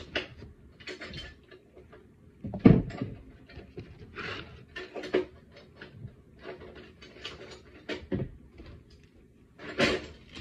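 Handling noise of kitchenware on a tabletop: scattered light knocks and rubbing as containers and a bowl are moved and set down, with a sharper knock a few seconds in and another near the end.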